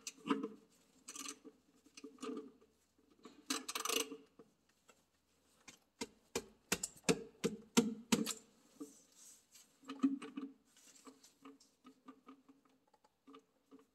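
Irregular metallic clicks and knocks of a 9/16 wrench being worked on a tractor's engine oil drain plug to break it loose. They come thickest about halfway through.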